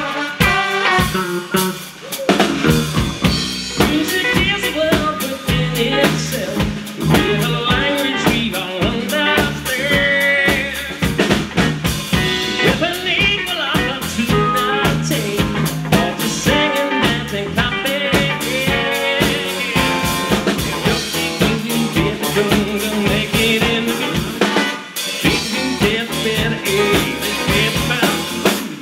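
A live band playing: drum kit, electric bass and electric guitar, with a man singing lead from behind the drums.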